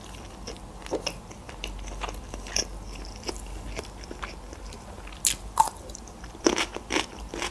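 Close-up mouth sounds of a person eating grilled chicken: chewing with soft wet clicks and smacks. Louder sharp clicks come about five seconds in and again near six and a half seconds, as more chicken is brought to the mouth and bitten.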